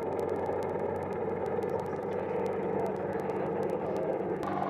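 Steady drone of an AH-64 Apache helicopter in flight, with faint regular ticking over it.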